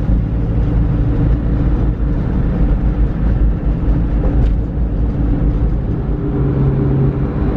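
Car interior noise while driving: steady engine and road rumble, with the engine note changing about six seconds in.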